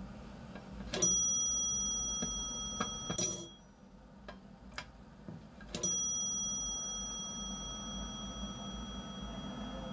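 Elevator hall lantern chime dinging twice, about five seconds apart. Each ding is a clear bell-like tone that rings on and fades slowly. A short rattling clatter falls between them, and a low steady hum runs underneath.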